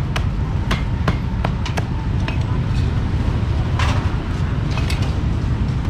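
Busy street-market din: a steady low rumble of traffic and engines, with a quick run of sharp knocks and clinks, about two or three a second, in the first two seconds and a few more about four to five seconds in.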